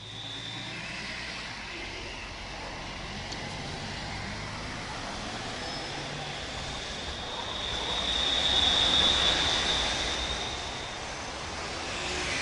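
Tram passing close by on street track, its wheels rumbling on the rails, with a high steel wheel squeal that swells in the middle and is loudest for a couple of seconds before fading, as the wheels grind through the curved track.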